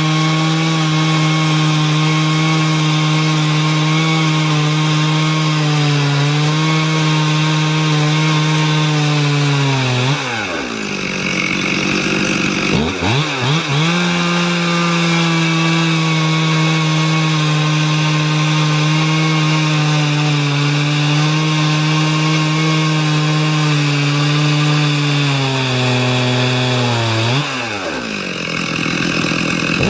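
Stihl MS 440 two-stroke chainsaw running at full throttle in an Alaskan chainsaw mill, its chain ripping lengthwise through a southern yellow pine log. Twice, about ten seconds in and again near the end, the engine note drops sharply and then climbs back up to full speed.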